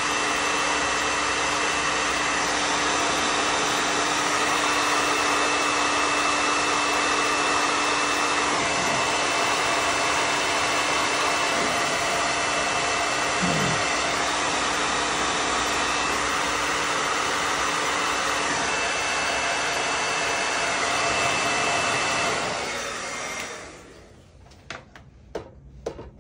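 Handheld hair dryer blowing steadily, a rush of air with a steady whine through it, then switched off about three-quarters of the way through and winding down. A few light clicks and knocks follow.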